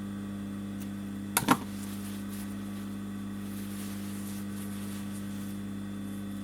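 Two quick snips of scissors trimming loose thread, about a second and a half in, over a steady electrical hum.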